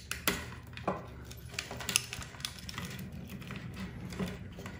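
Small plastic wire connectors being worked loose and unplugged from a 3D printer mainboard, with the wires being handled: scattered light clicks and rustling over a low steady hum.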